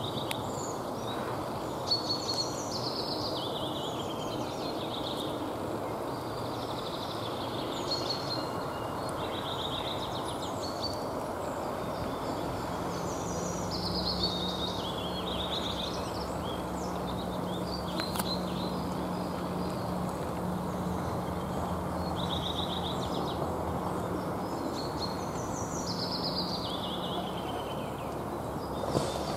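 Songbirds singing short descending, trilled phrases, repeated every few seconds over a steady background rumble. A low steady hum comes in partway through and drops away near the end.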